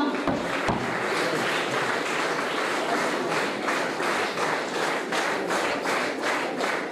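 Audience applauding: many hands clapping at once.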